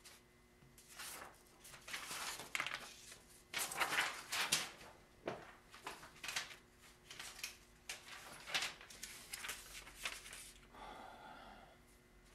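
A run of irregular scraping and rubbing noises, loudest about four seconds in: the wooden base of a clay-covered sculpture armature being slid and turned on a wooden worktable and handled.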